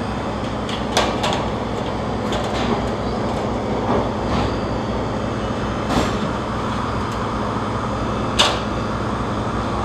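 Refrigeration condensing unit with a newly installed compressor running steadily, a low hum under an even whoosh, sounding healthy and free of the valve noise the old compressor had. A few sharp clicks or knocks break in, the loudest about eight and a half seconds in.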